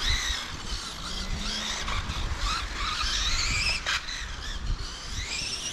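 Brushless electric motors of 1/8-scale on-road RC race cars whining, the pitch rising and falling repeatedly as the cars accelerate and brake around the track.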